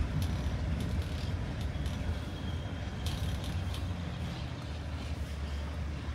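A car driving slowly, with a steady low engine and road rumble. A few short clicks and rattles come through, the strongest about three seconds in.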